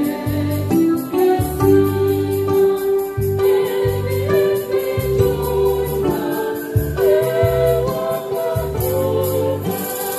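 A church choir sings a gospel hymn to electronic keyboard accompaniment: held chords over low bass notes in a regular, steady rhythm.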